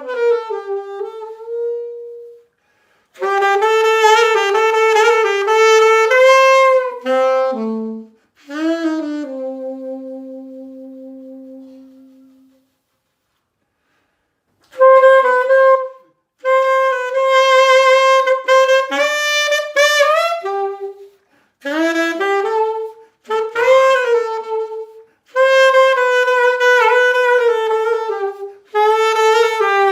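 Unaccompanied solo saxophone playing a melody in phrases separated by short silences, held notes with vibrato. About a third of the way in, a long low note fades away, followed by a pause of a couple of seconds before the playing resumes.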